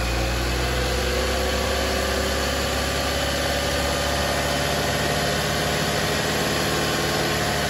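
2011 Chevy Equinox engine running steadily, held at about 2000 rpm.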